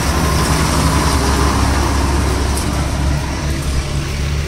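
Motorcycle engine running steadily at low speed, a continuous low hum with road and traffic noise around it.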